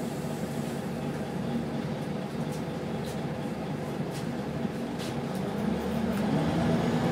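Cabin sound of a Wright Solar-bodied Scania single-deck bus: the diesel engine drones steadily, then rises in pitch and loudness about two-thirds of the way in as the bus pulls away. A few short clicks and rattles come from the cabin.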